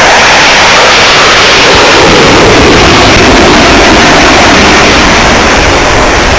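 MiG-29 fighter's twin RD-33 turbofan jet engines at takeoff power as the jet climbs away, a loud, steady jet roar with no let-up.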